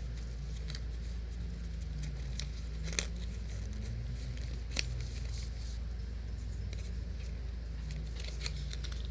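Faint handling of paper and tape, with a couple of light clicks, over a steady low hum.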